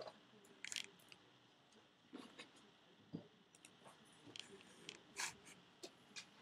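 Near silence of a small room, broken by faint scattered clicks and rustles of pens and papers being handled at a table, the clearest about five seconds in.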